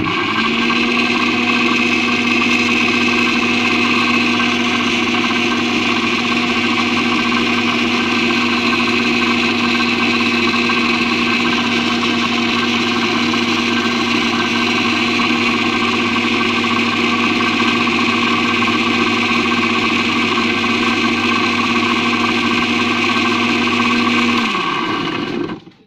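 Electric blender motor running steadily at one pitch while blending pieces of kencur (aromatic ginger) root in a little water. Near the end it is switched off and winds down, falling in pitch.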